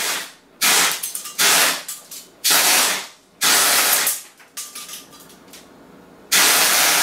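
Strafer Mk 2 airgun firing 6mm BBs in full-auto bursts, each a rushing hiss of air. There is a brief burst, then four bursts of about a second each, a quieter rattling lull, and an unbroken burst that starts about six seconds in.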